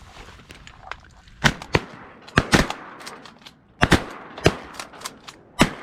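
Several hunters' shotguns firing a ragged volley at incoming ducks: about eight loud shots in quick, uneven succession with fainter cracks between, starting about a second and a half in. The volley misses the flock.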